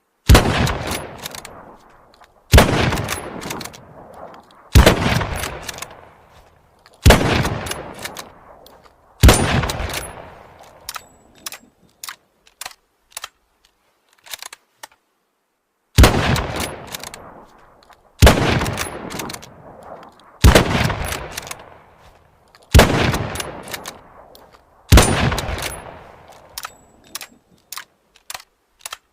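Mosin-Nagant M91/30 bolt-action rifle in 7.62×54mmR firing ten shots in two strings of five, about one shot every two seconds, each with a long echoing tail. Fainter sharp metallic clicks come between the shots and in the pause between the strings.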